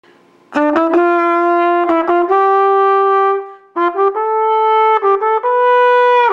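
Trumpet playing a short melody: a few quick notes settling into a held note, a brief break just past halfway, then a second phrase stepping higher and ending on a long held note.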